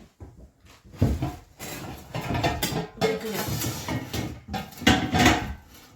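Metal pots clanking and scraping as a large pot is put away among other pots, with several sharp knocks.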